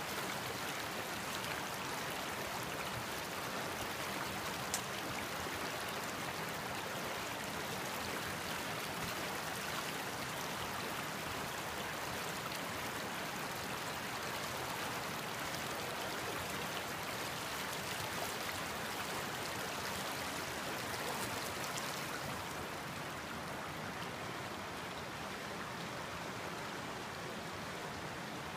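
Creek water rushing steadily over rocks and small rapids, with a single faint click about five seconds in.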